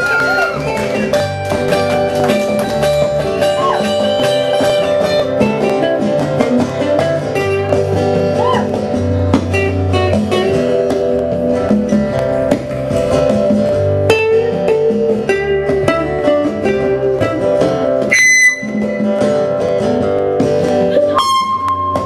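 Live band music: strummed acoustic guitars with harmonica and hand drum, playing without vocals.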